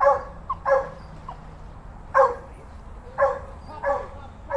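A dog barking repeatedly, about six short barks with uneven gaps between them.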